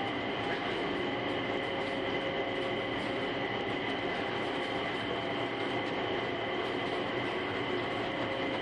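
A Mitsubishi Crystal Mover automated people mover running on its rubber tyres along a concrete guideway, heard from inside the car. A steady rolling noise carries several steady high-pitched tones over it, holding even throughout.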